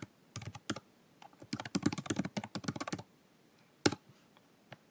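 Typing on a computer keyboard: quick runs of keystrokes for about three seconds, then a few single key taps near the end.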